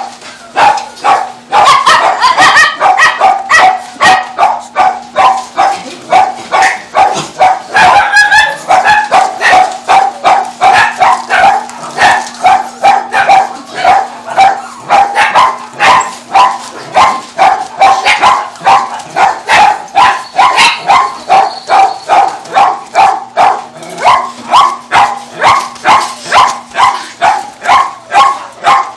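Shelter dogs in crates barking nonstop, loud, fast repeated barks at about two or three a second, sometimes overlapping.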